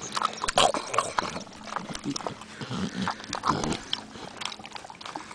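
Pig grunting, with short, irregular clicks and smacks in between; a few low grunts cluster past the middle.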